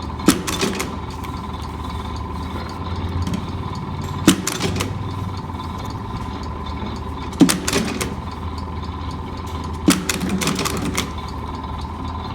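Electric JL Morrison paper stitcher running with a steady hum and cycling four times: each pedal press gives a sharp clack as the head drives a staple through the paper, followed by a brief mechanical clatter.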